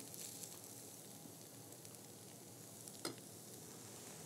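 Faint, steady sizzle of a vegetarian meat, rice and vegetable filling in a skillet on the cooktop, with one sharp click about three seconds in.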